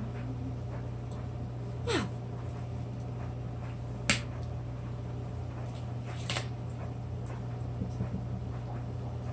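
A few light taps and clicks from dishes and icing-coated graham crackers being handled at a table, the sharpest about four seconds in, over a steady low hum.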